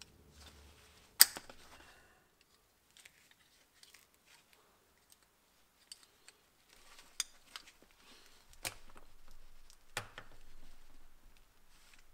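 Metal clicks and clacks of drum-brake springs, adjuster strut and pliers being handled while a return spring is stretched with pliers and hooked into place. One sharp snap about a second in, scattered faint ticks, then a few more distinct clacks near the end.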